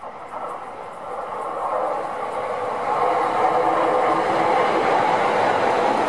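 Electric commuter train approaching and passing close by. Its running noise grows louder over the first three seconds, then holds steady as the cars go past.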